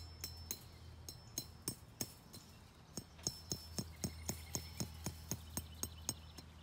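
Hammer tapping metal at the foot of a wire-mesh tree fence, light clinking strikes. A few scattered taps at first, then a steady run of about three to four a second from about halfway through.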